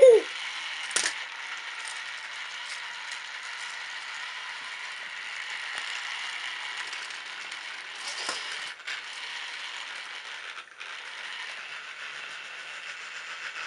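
A battery-powered toy's small electric motor and plastic gears running on a plastic toy-train track, a steady, fast ticking rattle. A loud plastic knock comes right at the start as the toy is set on the track, with a smaller one about a second later.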